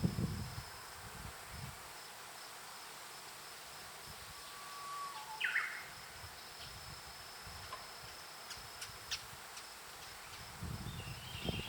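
A Japanese bush warbler sings one faint 'hoo-hokekyo' about halfway through: a held whistled note, then a quick rising flourish. A steady thin high tone runs underneath, and a low rumble comes near the start and again near the end.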